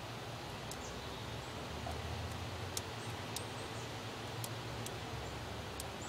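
Outdoor background noise: a steady low rumble with about half a dozen faint, sharp ticks scattered through it.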